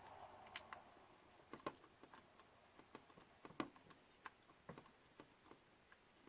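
Faint, irregular small clicks and taps of hands working the tiny parts of a DJI Phantom 3 Pro gimbal camera, fitting its ribbon cable around the gimbal shaft.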